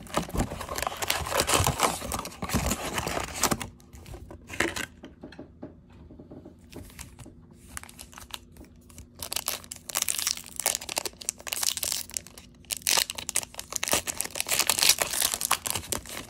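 Foil hockey card packs from an Upper Deck Artifacts hobby box crinkling as they are pulled out and handled, with the cardboard box opened at the start. A pack is torn open in the last few seconds. The crinkling is loudest in the first three seconds and near the end, with a quieter stretch in the middle.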